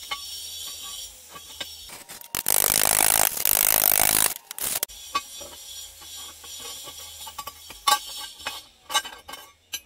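Steel parts of a homemade sprocket clamp clinking and scraping as it is handled and its threaded screw is turned. A loud rasping scrape of about two seconds comes a little over two seconds in, and short metallic clinks follow.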